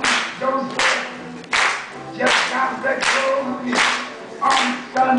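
Steady rhythmic handclapping, one clap about every three-quarters of a second, under a singing voice.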